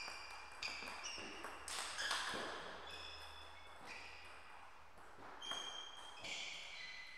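Several short high squeaks of rubber shoe soles on the sports floor as table tennis players move about between points, with a few light taps of the ball.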